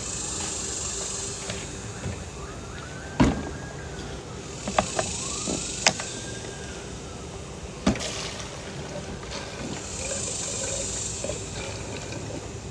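Gasoline being poured from a gas can into a lawn mower's fuel tank: hissing pours that come and go three times, with a few sharp knocks and clicks of the can and filler cap.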